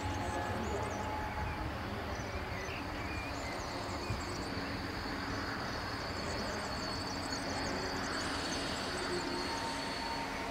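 DB class 628.2 diesel multiple unit running slowly past, its diesel engine rumbling steadily under running noise. A steady high whine joins about three seconds in.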